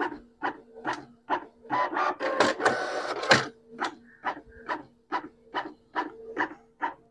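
Canon PIXMA TS3370S inkjet printer making copies: the print-head carriage shuttles back and forth with a short clack about twice a second over a low steady motor hum. A louder, busier stretch of paper handling comes about two seconds in and lasts a second and a half, as the next sheet is fed through.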